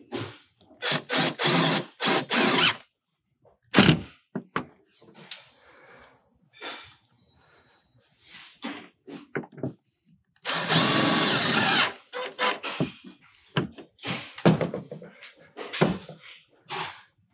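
Power drill running in short bursts, with one longer run of about a second and a half near the middle, and short knocks in between.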